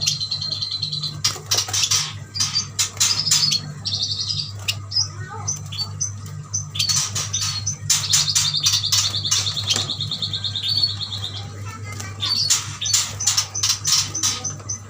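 Several yuhinas chirping busily in quick short calls, with a long rapid rattling trill of about three seconds past the middle.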